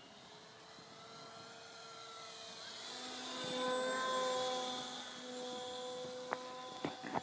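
Homemade electric RC airplane's Turnigy brushless outrunner motor and propeller whining in flight. The steady tone swells to its loudest about four seconds in as the plane passes, then holds a little quieter; a few sharp clicks come near the end.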